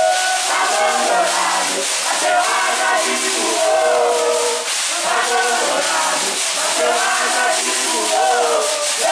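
A Moçambique congado group singing a chant together, several voices at once, over a steady shaking of rattles.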